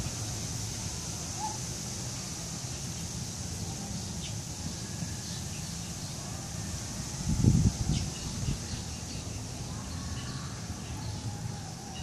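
Outdoor ambience: a steady hiss with a few faint, brief bird chirps, and one short low thump about seven and a half seconds in.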